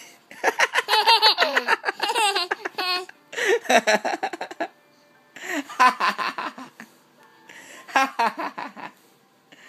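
Baby laughing in four bouts of high-pitched giggles, each a quick run of short laughs.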